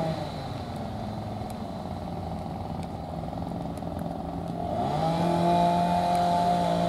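An engine running at a steady high speed. Its pitch drops and it softens at the start, then it climbs back up to speed about five seconds in.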